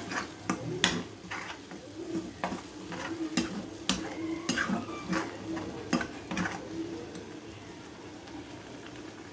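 Steel spatula scraping and clicking against a black kadai as a thick curry paste is stirred over the flame, over a soft sizzle. The stirring stops about six and a half seconds in, leaving only the low sizzle.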